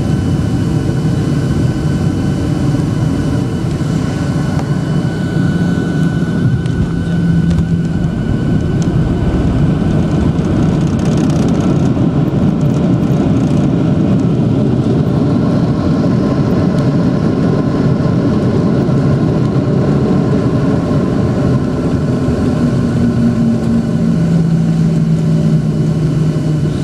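Boeing 737-800 landing as heard from a cabin seat over the wing: a steady roar of the CFM56 jet engines and the airflow. The roar deepens and swells as reverse thrust is applied after touchdown. Near the end an engine tone falls as the engines spool down while the plane slows on the runway.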